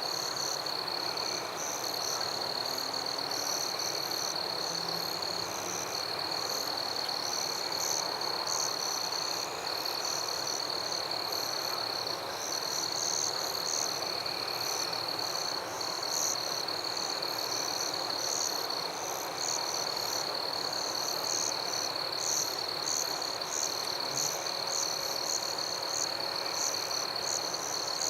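Night chorus of frogs and insects: a steady high-pitched insect trill with rapid, irregular high chirping and calling layered above it.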